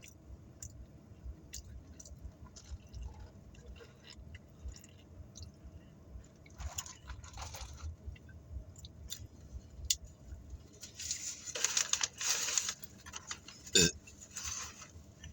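Close-up chewing and mouth clicks of someone eating a cheeseburger on a soft pretzel bun. The chewing grows louder about eleven seconds in, with a stretch of rustling and a sharp knock near the end.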